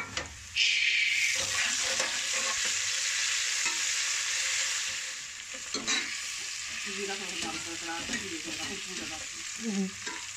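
Sliced onions frying in hot oil in a steel pot, sizzling as a spatula stirs them; the sizzle jumps up suddenly about half a second in and eases a little after about five seconds, with a sharp clack of the spatula on the pot near six seconds.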